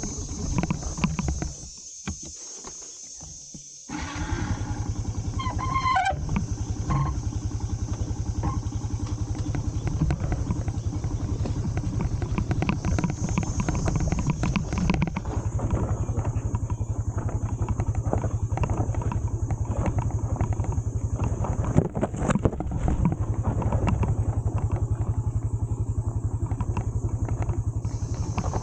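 Motorcycle engine running with a steady low drone, dropping away to a quieter stretch for about two seconds near the start.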